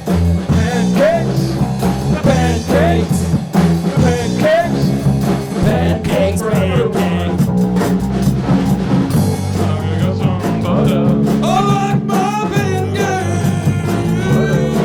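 Rock band jamming: a bluesy instrumental with a wavering lead line over bass and drums.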